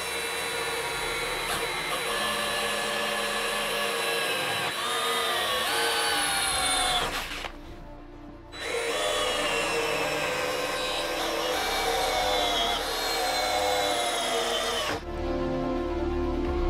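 Cordless drill boring through the sheet steel of a lawn mower deck bracket. It runs twice, with a short pause about seven seconds in, and the motor's pitch sags and shifts as the bit bites.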